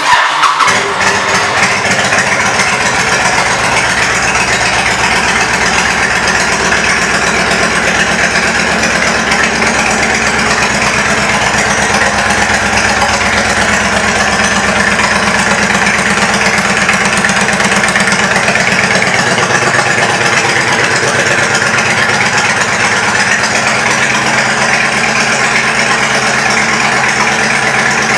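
2005 Honda VTX 1300S V-twin with aftermarket Cobra pipes and intake, starting up and settling into a steady idle.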